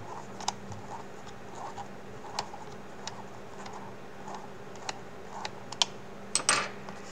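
Small precision screwdriver working the metal hinge pins out of a VR headset's hinge: scattered light clicks and scratches of the bit in the screw heads, with a couple of louder clicks near the end.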